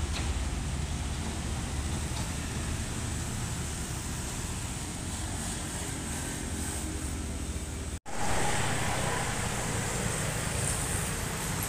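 Heavy trucks' diesel engines running at low speed through a turn, a steady low sound with street traffic around it. It cuts off sharply about 8 seconds in, and a broader traffic noise of passing vehicles follows.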